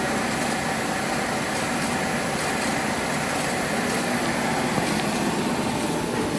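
Timesaver 36-inch belt grinder running under power with no abrasive belt fitted: a steady, even hum and hiss of its electric motor and variable-speed belt drive.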